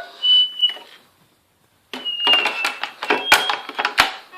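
Office telephone on a PBX extension ringing: a short high electronic ringer tone, then after a second's pause another high ringer tone, falling slightly, mixed with a clatter of clicks and two sharp knocks.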